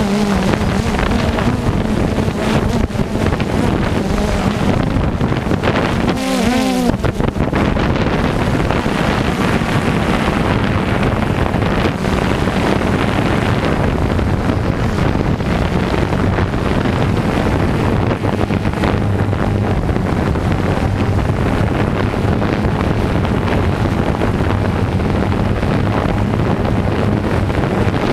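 Farm machinery engine running steadily, with wind buffeting the microphone; the engine note wavers briefly about six and a half seconds in.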